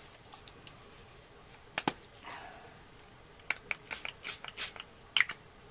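A small plastic spray bottle spritzing water onto acrylic paint in a foam tray: short hissy sprays and clicks of the pump, with a cluster of quick sharp sounds in the second half.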